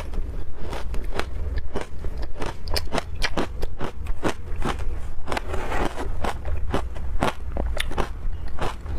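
Someone biting and chewing frozen shaved ice: sharp crunching cracks, about three a second, over a steady low hum.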